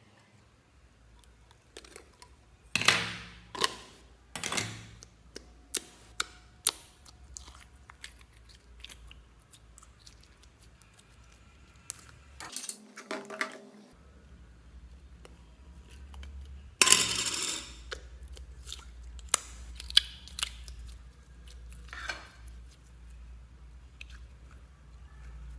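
Slime and plastic containers being handled and mixed by hand: scattered clicks and taps, with a few louder wet, squishy stretches about three seconds in, again shortly after, and past the middle.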